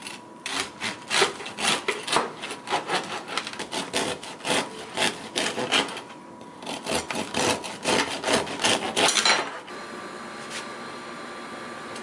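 Serrated bread knife sawing back and forth through the hard crust of a sourdough rye loaf on a wooden cutting board, in rapid rasping strokes with a short pause about six seconds in. The sawing stops about two seconds before the end, leaving a steady hiss.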